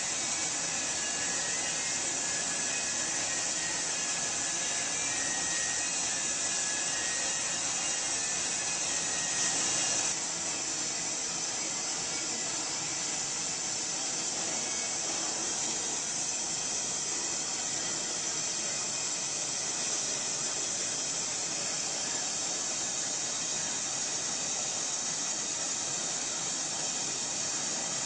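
Gas torch hissing steadily as it heats the metal sculpture so it accepts the patina, swelling briefly about nine seconds in.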